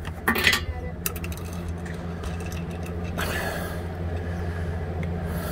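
Scattered light clicks and scrapes of a hand tool working against parts in a car's engine bay, over a steady low hum.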